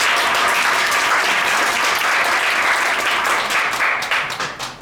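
Audience applauding, dying away into a few scattered claps near the end.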